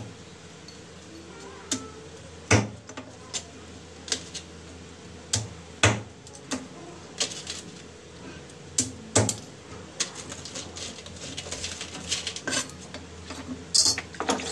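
Cleaver chopping mud crab on a thick wooden chopping block: sharp single chops about a second apart, then a run of lighter, quicker clicks in the last few seconds.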